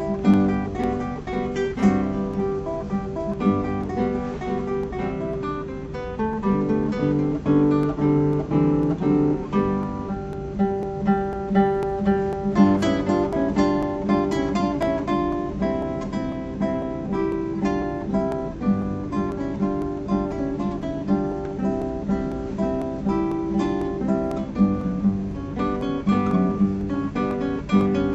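Three classical guitars playing a piece together in interwoven parts, with a continuous stream of plucked notes.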